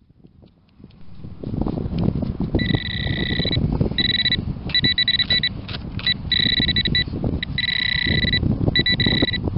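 Handheld metal-detecting pinpointer probe beeping in short bursts, some rapidly pulsing, as it is swept through loose soil: its alert that there is metal close to the tip. Underneath, a low scraping and rustling of the probe and hand moving through the dirt.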